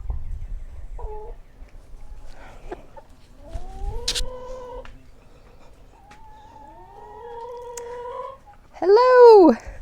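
Drawn-out animal calls: two long, slowly rising held calls, then a louder, shorter call that rises and falls near the end.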